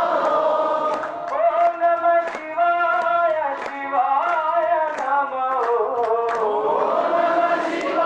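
A group singing a devotional bhajan in chorus, long melodic notes rising and falling together, with sharp percussive beats a few times a second keeping time.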